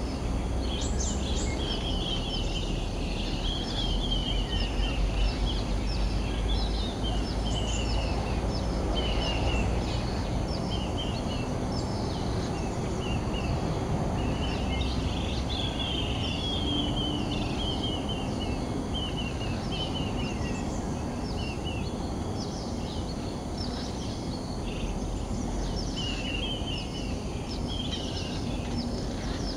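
Birds calling: runs of short, high, down-slurred notes repeated all through, over a steady low rumble of wind or outdoor noise.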